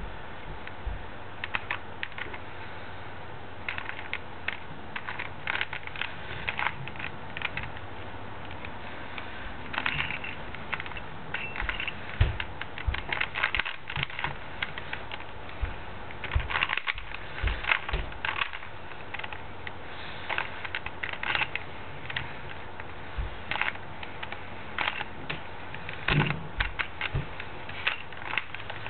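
Plastic Rubik's Cube being twisted by hand, its layers clicking and clacking in quick irregular flurries of turns with short pauses between.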